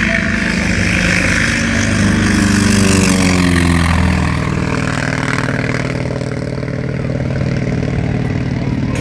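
T-28 Trojan's nine-cylinder Wright R-1820 radial engine running at high power on a low flypast, with the propeller and exhaust note dropping in pitch as it passes, about three to four seconds in.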